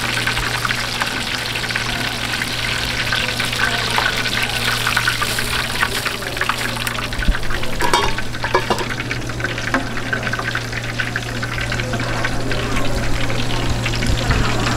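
Food sizzling and crackling in hot oil as it fries, over a steady low hum, with a few clinks about eight seconds in.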